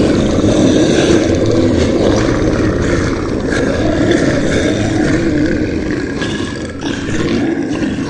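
Dinosaur roar from an animatronic model dinosaur: a long, low, rasping growl that runs on without a break, easing slightly near the end.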